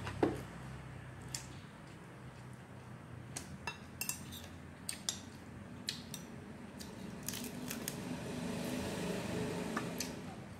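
A metal spoon clinking and scraping against ceramic plates and a bowl as food is served: one sharp ringing clink right at the start, then scattered lighter clicks and taps.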